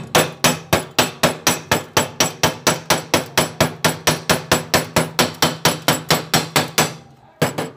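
A hammer rapidly striking a fresh stick weld on thin steel square tube, about four blows a second, chipping the slag off the bead. The blows stop about seven seconds in, with one last strike shortly after.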